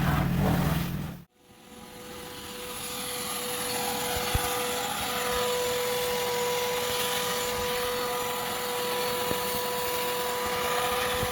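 Pressure washer running: a steady whine over a hiss of spray. A low engine hum in the first second cuts off suddenly, then the whine and hiss build up over about two seconds and hold.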